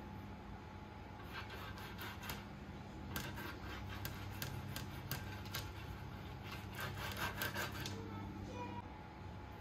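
Chunks of marinated chicken being threaded onto a skewer by hand: a run of short rubbing, scraping strokes with small clicks, dying away near the end.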